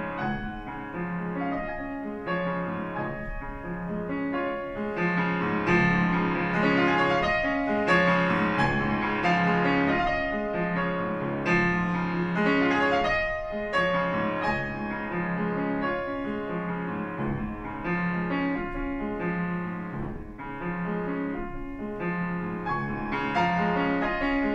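A grand piano played solo in a classical piece, with a low note recurring about once a second beneath a moving upper line.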